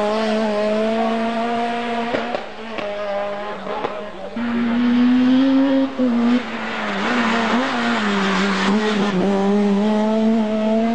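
Rally car engine running hard at high revs, its note stepping up and down several times as it shifts gear and takes corners, loudest about halfway through.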